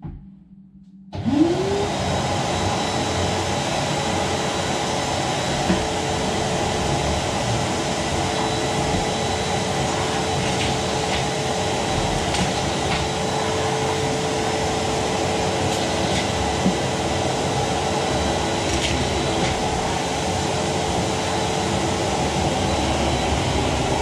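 Rowenta vacuum cleaner switched on about a second in, its motor rising in pitch as it spins up, then running steadily, with a few short clicks.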